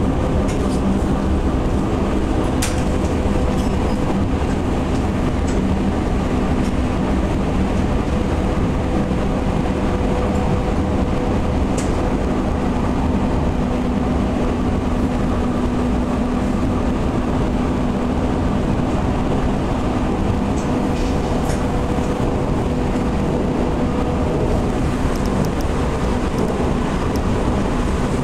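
Odakyu 30000 series EXE Romancecar motor car (DeHa 30502, Toshiba IGBT-VVVF) running at steady speed, heard from inside the car: an even rumble of wheels on rail with a steady hum underneath. A few sharp clicks come through, about three seconds in, around twelve seconds and again around twenty-one seconds.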